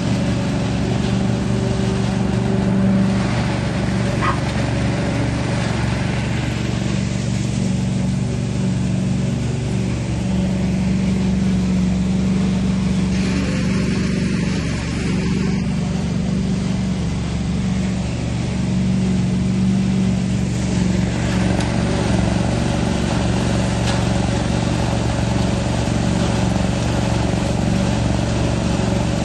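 Leaf vacuum loader's engine running at a constant speed, with a steady rushing hiss from its intake hose as dry leaves are raked into it.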